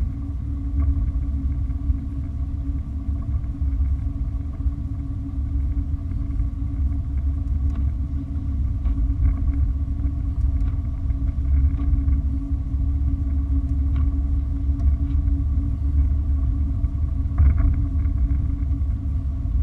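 A car driving, giving a steady low rumble of road and engine noise with a faint even hum and a few light ticks over it.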